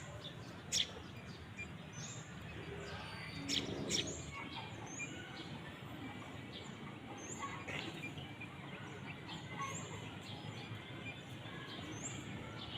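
A bird repeats a short, high, rising chirp every second and a half to two seconds over steady outdoor background noise. Two sharp clicks stand out, about a second in and again around three and a half seconds in.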